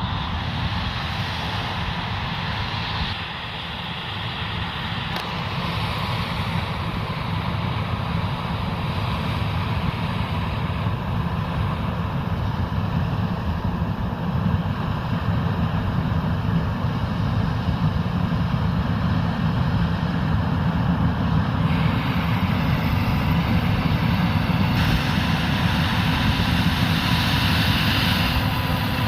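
Large diesel farm machinery at corn harvest, a combine harvester and a grain-cart tractor, running steadily. The tone shifts abruptly several times.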